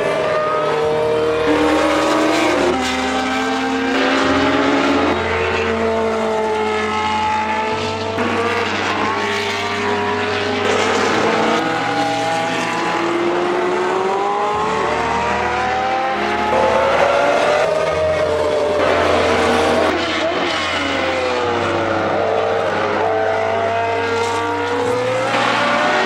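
Early-1980s Formula 1 cars, the Tyrrell 012 among them, running at racing speed with their Ford-Cosworth V8 engines. The pitch rises sharply through the gears and drops at each upshift, then falls away under braking, with several cars' engines overlapping.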